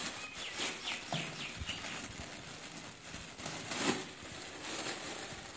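Clear plastic bag crinkling and rustling as it is handled and opened by hand, its contents of dried dates shifting inside, with a louder crackle about four seconds in.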